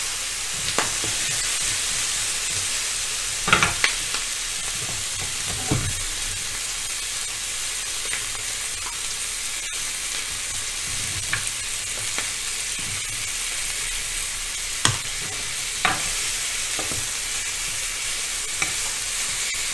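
Chicken drumsticks sizzling on a hot ribbed grill pan, a steady hiss, with a few sharp clacks of metal tongs against the pan as the pieces are turned.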